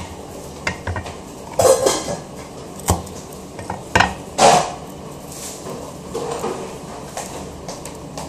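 Irregular light clicks and short scraping rustles of hands handling small kitchen items. A few sharper clicks and louder scrapes come between about one and a half and five seconds in, then fainter handling noise.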